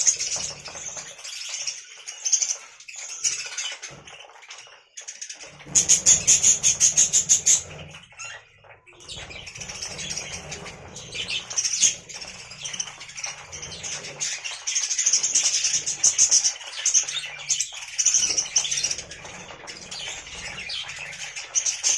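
Pet budgerigars chirping and chattering, with a loud burst of rapid wing-flapping about six seconds in that lasts under two seconds.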